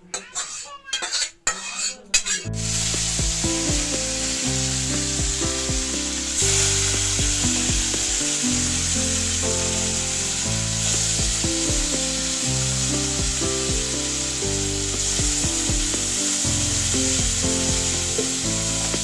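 For about two seconds, a metal utensil scrapes and clatters against a metal cooking pot. Then comes a steady sizzle of battered slices frying in hot oil, with background music over it.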